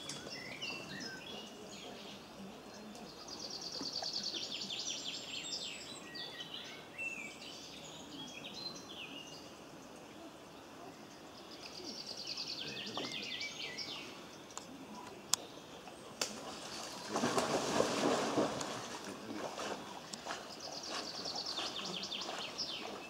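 A songbird singing short, fast trilled phrases, repeated about every eight or nine seconds, over steady outdoor background noise. A loud rush of noise lasting about two seconds stands out near the three-quarter mark.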